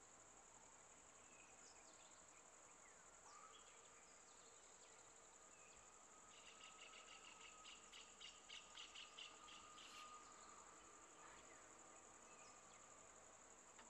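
Faint forest ambience: a steady, high-pitched insect drone with scattered short bird chirps. Between about six and ten seconds in, a rapid run of pulsing calls, about four a second, rises above it.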